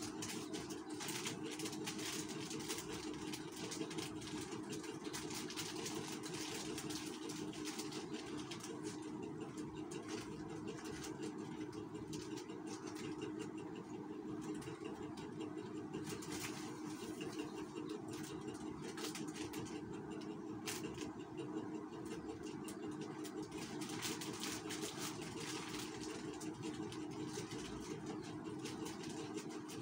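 A steady, engine-like mechanical hum, with intermittent crinkling and rustling of plastic sachet strips being handled.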